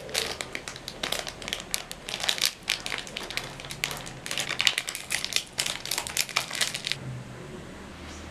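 Plastic ice-cream bar wrapper crinkling as hands tear it open and peel it back off the bar. The crinkling stops about seven seconds in, leaving a low steady hum.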